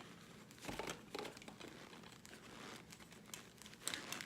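Faint crinkling and tearing of tape and cardboard as a heavily taped box is worked open by hand, in scattered short rustles a little stronger about a second in and near the end.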